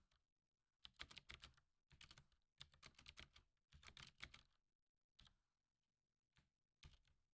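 Faint computer keyboard typing: quick bursts of keystrokes, then a few single keystrokes near the end.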